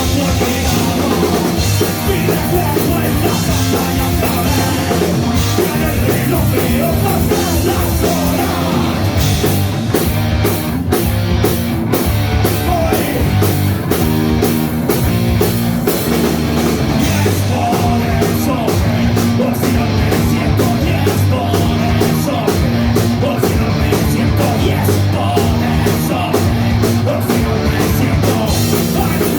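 Punk rock band playing at full volume: electric guitars, bass and drum kit, with the cymbals keeping a fast, even beat from about ten seconds in.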